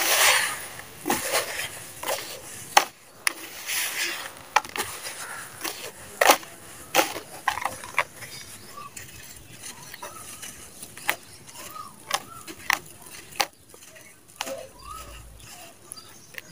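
Hands crushing and crumbling lumps of dry dirt in a plastic basin: a rustling, sifting hiss broken by many sharp crunches, busiest in the first half and sparser toward the end.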